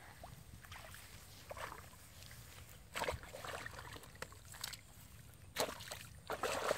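Shallow water sloshing and splashing in irregular bursts, the loudest about three seconds in and again near the end.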